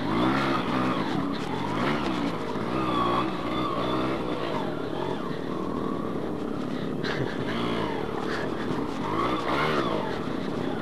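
Yamaha two-stroke single-cylinder motorcycle engine riding through thick mud, its pitch rising and falling again and again as the throttle is opened and eased off.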